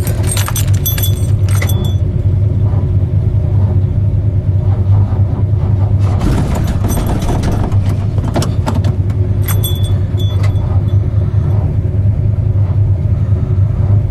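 Ford Ranger drag truck's cold engine cranking over on the starter below freezing without catching, a steady churning drone with metallic rattles now and then.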